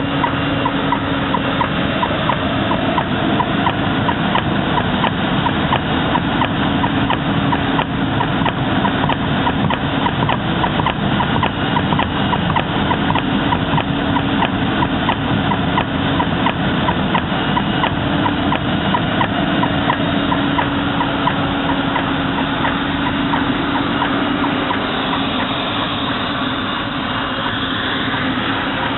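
Automatic profile blasting cabinet running with corundum abrasive: a loud, steady rush of machinery, with a fast, even ticking and a low hum that comes and goes.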